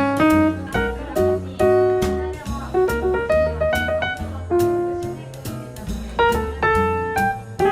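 Jazz music: piano notes over a drum kit and bass, with regular drum and cymbal strikes.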